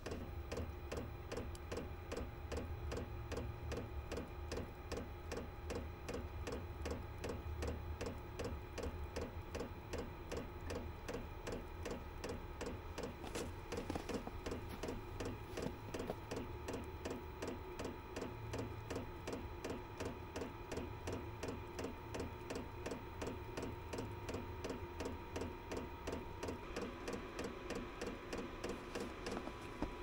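Chinese diesel heater in its glow-plug start-up cycle: the fuel metering pump ticks rapidly and evenly, over the steady whine of the combustion fan, which steps up a little in pitch near the end.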